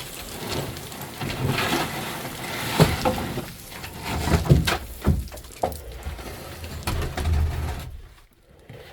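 Scrambling down loose rock on a rope: scraping and crunching underfoot, rustling of clothing and gear, and a series of scattered knocks. The noise drops away abruptly near the end.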